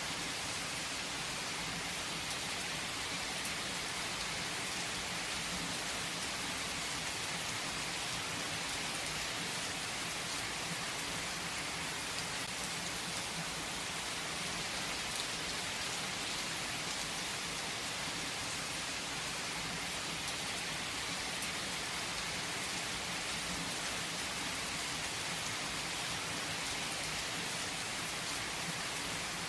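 Heavy rain falling steadily on a tree, an even hiss of drops with a few separate drips standing out now and then.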